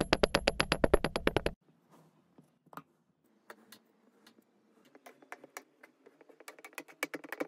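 Kinetic sand dropping and crumbling in a glass as it is packed down: a fast run of sharp clicks for about a second and a half, then faint, scattered crackles that grow denser near the end.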